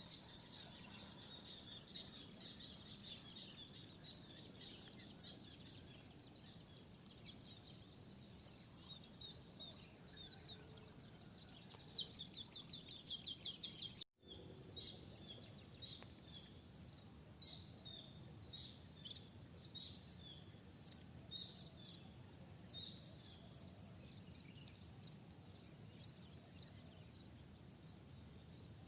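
Faint outdoor ambience of birds calling, many short chirps with a quick run of repeated notes about twelve seconds in, over a steady high insect drone. The sound drops out for an instant at about fourteen seconds.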